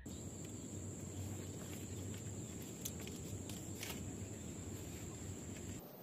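Quiet outdoor ambience with a steady high-pitched insect trill, a cricket-like drone that stops shortly before the end. A low rumble runs underneath, and a few faint clicks come about three and four seconds in.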